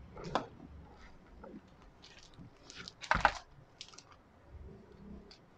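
Clear plastic bag crinkling around a remote control as it is handled, with scattered small crackles and one louder rustle about three seconds in.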